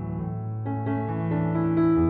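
Soft background piano music, with notes and chords changing every half second or so.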